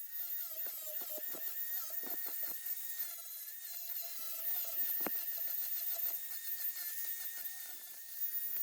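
Power grinder grinding down a fresh weld on a steel dirt-bike frame's foot peg mount: a high whine that wavers as the grinder bites, with scratchy strokes and one sharp click about five seconds in.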